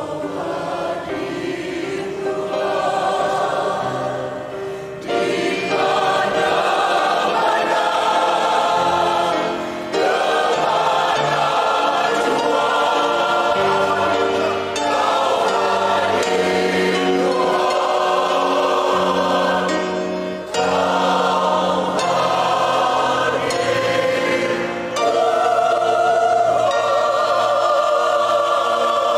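Mixed choir of men and women singing an Indonesian worship song in parts. The chords are held in long phrases with short breaks about every five seconds.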